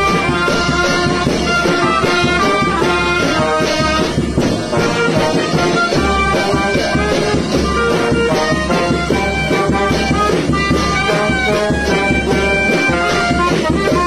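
A small brass band playing a lively tune live: trumpet, trombone and clarinet carry the melody while hand cymbals clash on a steady beat.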